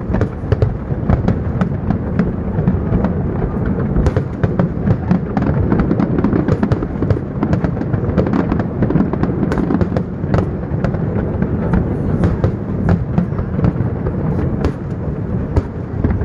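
Fireworks display: a continuous barrage of aerial shells bursting, with many sharp bangs and crackles running together without a break.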